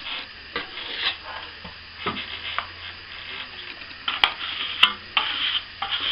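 Plastering tools scraping and working wet plaster in repeated short strokes, with two sharp clicks a little after four and five seconds in.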